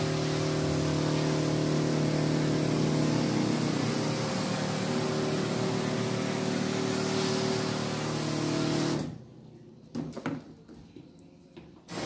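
Electric 16-litre tank sprayer: the pump motor running with a steady hum under the hiss of its nozzle set to a fine mist. The sound cuts off abruptly about nine seconds in, leaving a few light knocks, and starts again at the very end.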